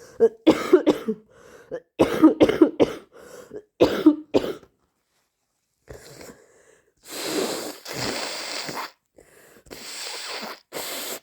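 A person with a cold coughing in three quick fits of several coughs each, then blowing the nose in long noisy blows in the second half.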